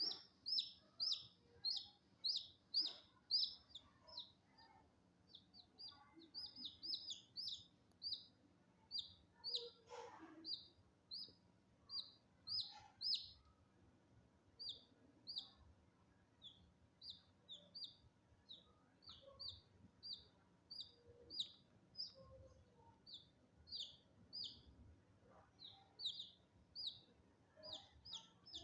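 A small bird chirping over and over, short high downward-sliding peeps about twice a second, without a break.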